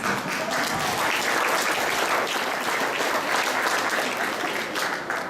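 Audience applauding, a steady spell of clapping that eases off near the end.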